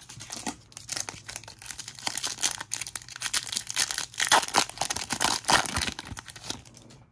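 Close-up crinkling and tearing of a trading-card pack wrapper being handled, a dense irregular crackle that swells in the middle and dies away just before the end.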